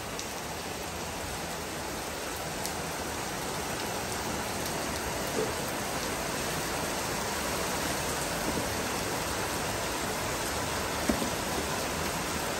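Steady hiss like falling rain, with a few faint clicks as a box cutter slits the packing tape on a cardboard box.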